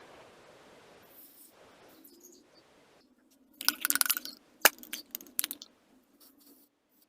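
A soft hiss for the first couple of seconds, then a quick run of light metallic clinks and sharp clicks from small metal parts being handled, the loudest about a second and a half in from their start.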